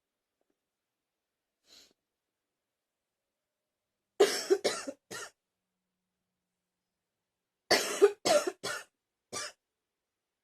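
A person coughing in two fits: three quick coughs about four seconds in, then a longer run of several coughs near the end, with silence between.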